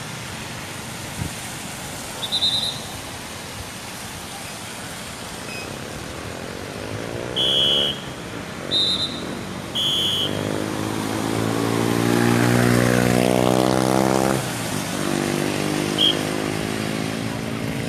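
A motor vehicle's engine passing close by on a wet road, building from about a third of the way in, holding steady, then dropping away suddenly, with another engine following near the end. Several short, high whistle blasts cut through it, five in all.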